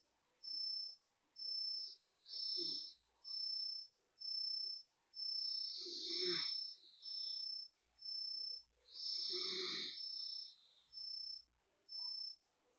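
A chirping insect calls with a high, steady-pitched chirp about once a second. Each chirp lasts about half a second. A lower, rough grunt-like sound comes in three times along with the chirps.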